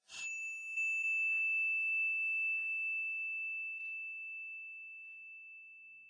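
A single bell-like ding, struck once, its high tone ringing on and slowly fading over several seconds.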